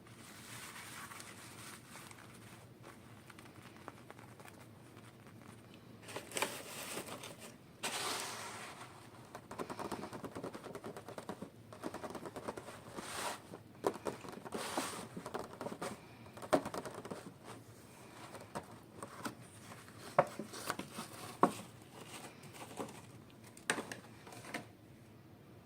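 Packaging being handled and opened, crinkling and tearing in irregular bursts with sharp clicks, starting about six seconds in.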